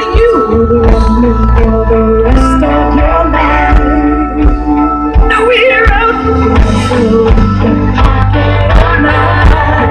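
Live band music at full volume: long held keyboard chords over bass and drums, with a voice singing a short line about halfway through.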